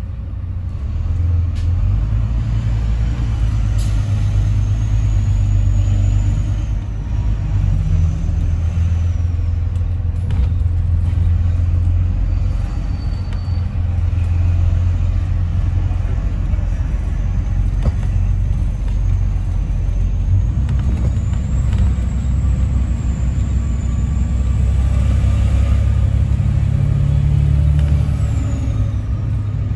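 Double-decker bus engine and road noise heard from inside the bus: a steady low rumble that grows louder about a second in as the bus pulls away and drives on. A faint high whine rises and falls in pitch.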